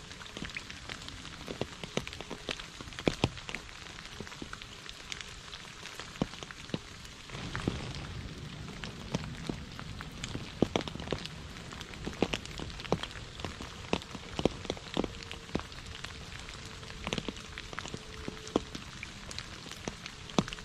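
Rain falling on a shallow puddle and wet leaf litter: a steady patter with many separate drops splashing close by. A low rush swells for a few seconds about a third of the way in.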